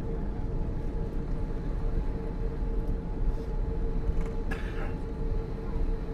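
Steady low rumble of an Airbus A340-600 heard inside the cabin, with a constant hum through it and a brief sharper noise about four and a half seconds in.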